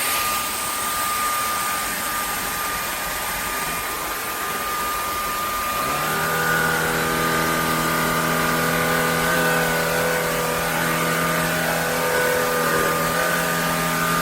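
Shark Clean & Empty cordless stick vacuum running: a loud, steady rushing whine with a high steady tone. About six seconds in, a second, lower-pitched motor hum joins and holds steady.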